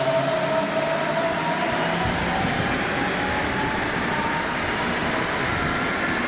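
DB class 423 S-Bahn electric multiple unit accelerating away, its traction motors giving a whine of several tones that slowly rise in pitch, over the steady hiss of heavy rain.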